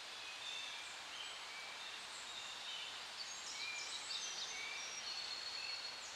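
Faint outdoor nature ambience: scattered short, high chirps and whistles of birds over a steady hiss, busier in the second half.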